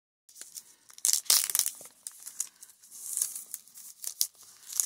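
Plastic wrapping on a Miniverse capsule ball being crinkled and peeled off by hand, in irregular crackling rustles that are loudest about a second in.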